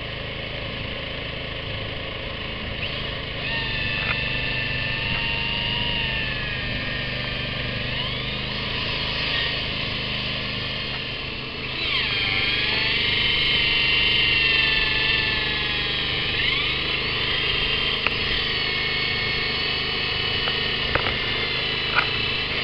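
Cordless drill boring holes through a timber fence post, the motor whine rising and falling in pitch as the bit loads and frees. A few sharp clicks near the end.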